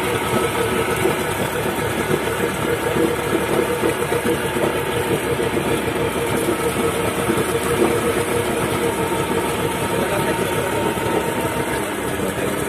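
Yamaha 40 hp outboard motor running steadily on a test run, its lower unit in a tub of fresh water that churns and splashes.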